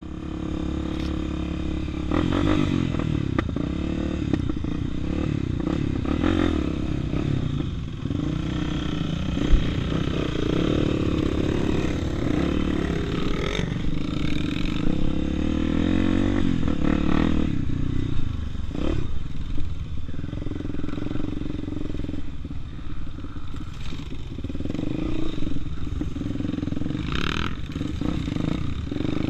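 Honda XR250 Tornado's single-cylinder four-stroke engine running under load during an enduro ride, its pitch rising and falling as the throttle opens and closes, with scattered knocks and rattles.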